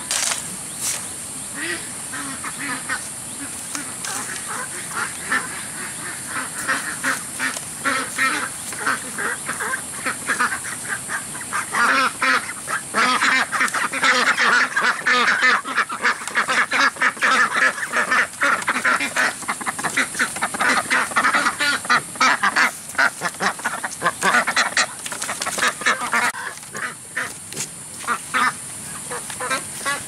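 Many farm animals calling at once, a busy stream of short, rapid calls that grows louder from about twelve seconds in and eases off again near the end.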